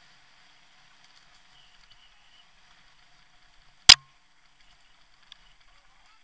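Faint steady hiss of a fatbike rolling down a dirt trail, broken about four seconds in by one sharp, loud knock as the bike or its camera mount jolts.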